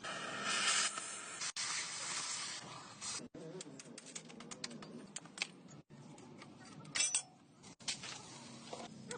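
A hiss of noise for about three seconds, then a run of light, irregular clicks and clinks, the loudest about seven seconds in.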